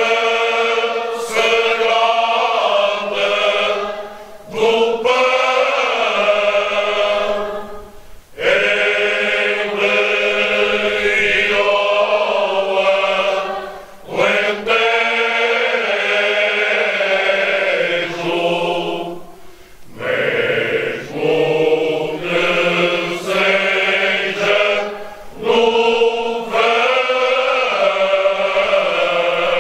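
Background music of slow chanted singing in long phrases, with brief breaks between them.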